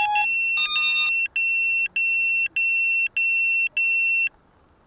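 Electronic beeper on a crashed Eachine Wizard X220S FPV quadcopter. It gives a couple of short multi-tone chirps, then five evenly spaced, high-pitched beeps about half a second long each, and cuts off abruptly shortly before the end.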